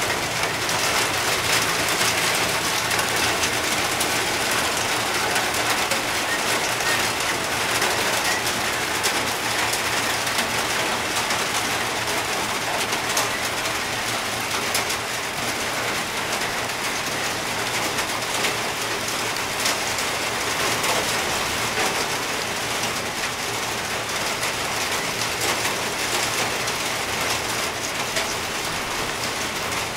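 Steady rain falling: an even hiss of drops with small scattered ticks.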